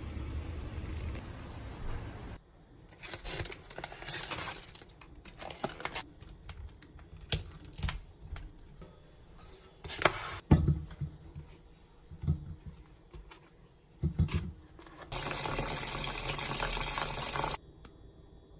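Water splashing and a tap running in short spells, with scattered small clicks and knocks. A steady low hum stops suddenly about two seconds in. A steady rush of water starts about fifteen seconds in and cuts off sharply near the end.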